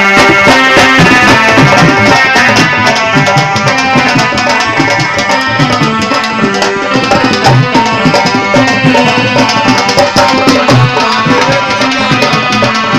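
Loud Punjabi devotional folk music played live, tabla drumming under a sustained melody, with no singing.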